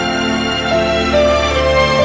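Background music: a slow, sustained instrumental with held notes that change pitch every second or so.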